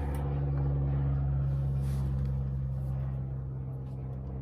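An engine running with a steady low hum that slowly fades.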